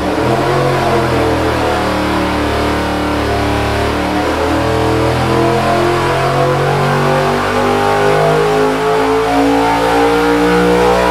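GM 4.8 L LS V8, fitted with a big COMP LSR camshaft and Edelbrock E-Street cylinder heads, making a wide-open-throttle engine-dyno power pull. The engine pitch climbs steadily over about ten seconds toward 7,000 rpm.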